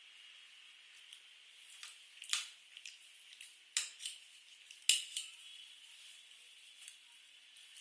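Close-miked eating sounds from a meal of spicy noodles and french fries: three sharp clicks a little over two, near four and near five seconds in, with softer ticks and a faint steady hiss between.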